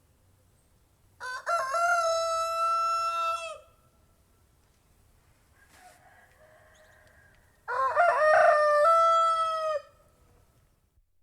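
Domestic rooster crowing twice, a few seconds apart. Each crow lasts over two seconds, a held cock-a-doodle-doo that drops in pitch at the end.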